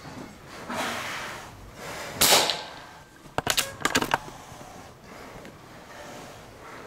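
A shot from a Benjamin Marauder Woods Walker .22 precharged pneumatic air gun about two seconds in: one sharp pop with a short tail. About a second later comes a quick run of four or five sharp clicks.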